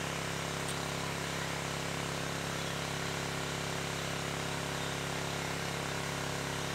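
An engine running steadily nearby, a constant droning hum that holds one pitch without revving.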